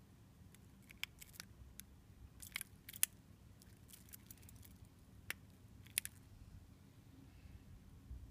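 Seiko 6139 'Pogue' automatic chronograph wristwatch clicking as it is handled. About a dozen small sharp clicks come at irregular spacing over the first six seconds, the loudest about three seconds in.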